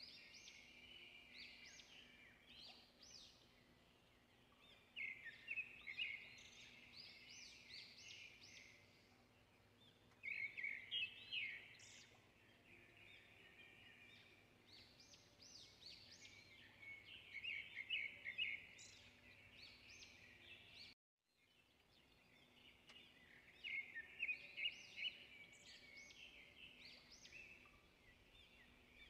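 Birds chirping and singing in quick clusters of high chirps and rising notes every few seconds, over a faint steady low hum. The sound cuts out completely for a moment about two-thirds of the way through.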